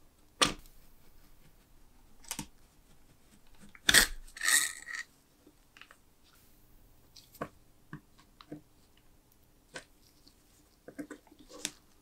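Metal-on-metal clicks and taps as a thin steel pick pries at the rusty parts of an old spark lighter. The loudest is a clack about four seconds in, followed by a short scraping rattle, and lighter ticks come later.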